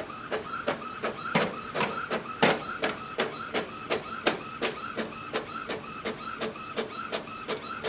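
Epson WorkForce Pro WF-4820 inkjet printer printing a document. Its mechanism clicks regularly, about three times a second, with a whir between the clicks.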